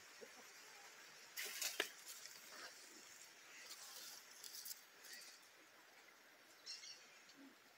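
Mostly quiet, with a few brief rustles of mulberry leaves and twigs brushing against the phone as it pushes into the branches. The loudest comes about two seconds in, ending in a sharp click.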